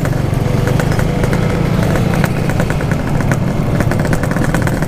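Yamaha RX-King's single-cylinder two-stroke engine running steadily through an aftermarket PK 3 packing-power exhaust, at a steady pitch with a fast, even crackle of exhaust pulses.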